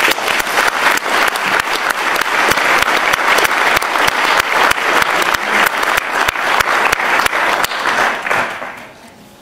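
Audience applauding, a dense, steady clapping that starts abruptly and dies away about eight and a half seconds in.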